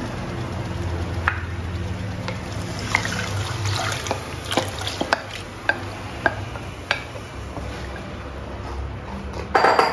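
Thin curd-and-gram-flour mixture thinned with water pouring from a glass bowl into an aluminium kadhai, with a wooden spatula stirring and clicking against the pan. A short, louder rush of noise comes just before the end.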